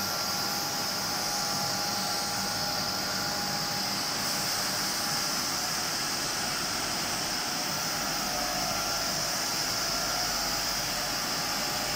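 Plastic profile extrusion line running: a steady mechanical whir and hiss with two faint steady whining tones. A low hum comes up about two-thirds of the way in.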